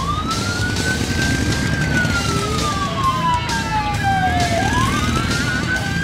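Police siren wailing: the pitch climbs quickly, sinks slowly for about three seconds, then climbs again about two-thirds of the way through, as the police car moves off on a call.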